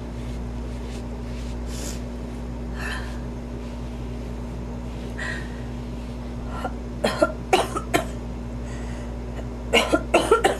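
A woman's coughing fit: a few faint breaths, then a cluster of sharp coughs about seven seconds in and another near the end. She puts the cough down to allergy.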